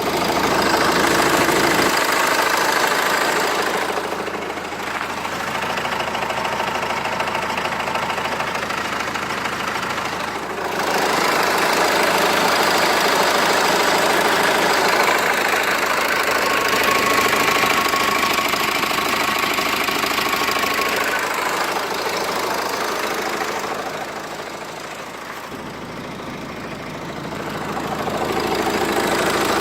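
Renault Laguna II phase 2 engine idling hot with a knock, which appears at hot idle and disappears when the revs rise. The level dips twice and comes back.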